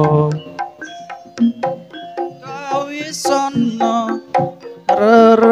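Javanese gamelan music, with kendang hand-drum strokes and struck metal notes, accompanying a sung devotional song. A held sung note fades out at the start, a wavering sung phrase comes about halfway through, and a loud long sung note begins near the end.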